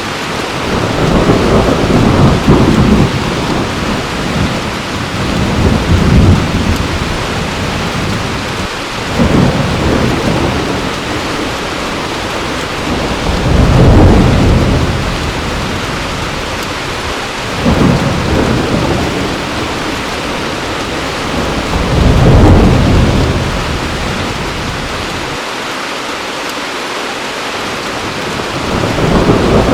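Heavy rain falling steadily, with low rolls of thunder swelling and fading about every four seconds, seven times in all.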